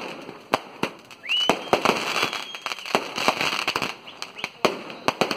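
Firecrackers bursting in a rapid, irregular run of sharp bangs. A high whistle rises about a second in and holds for about two seconds.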